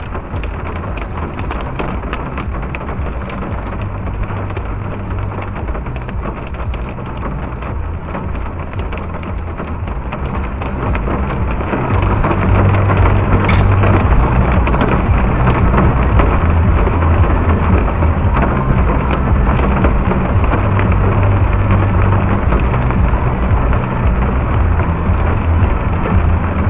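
Small pea-sized hail and rain pelting down in a dense, steady patter of tiny ticks over a low rumble, growing louder about twelve seconds in.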